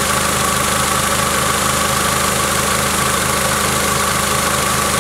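Honda Accord engine idling steadily on a freshly replaced alternator, with a steady high whine underneath. The drive belt has just been adjusted and runs without squealing.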